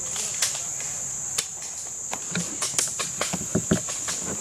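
Steady high-pitched insect chorus, with scattered sharp clicks and knocks.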